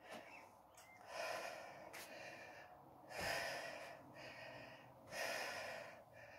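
A woman breathing hard from exercise: faint breaths, about one every two seconds.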